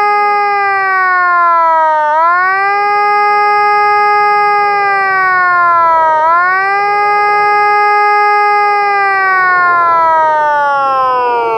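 Cold War–era electronic mobile warning siren sounding the German ABC-Alarm (CBR alert) signal: a loud, buzzy steady wail that sags in pitch and quickly snaps back up twice, about four seconds apart. Near the end it begins a long, slow downward glide.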